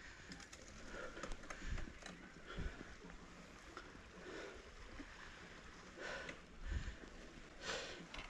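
Mountain bike rolling down a dirt trail, its tyres running over the ground with scattered knocks and rattles from bumps.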